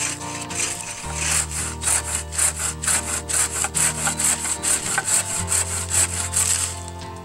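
Wooden-frame bucksaw cutting through a fallen branch, its blade rasping in quick, even back-and-forth strokes that grow stronger about a second in.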